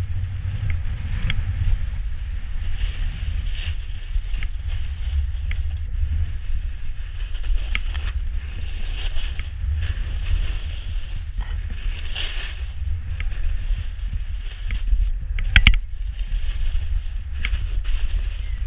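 Snowboard sliding over spring snow, its edge scraping in hissing swells with each turn, over a steady low wind rumble on the microphone. A sharp knock comes about two-thirds of the way through.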